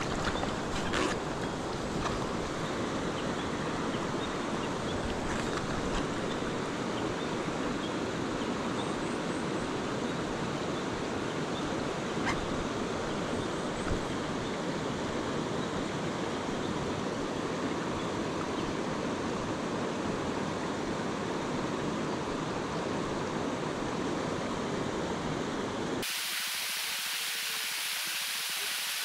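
Steady rushing of river water flowing past, with a couple of faint knocks in the middle. About three seconds before the end the sound switches abruptly to a thinner, higher hiss.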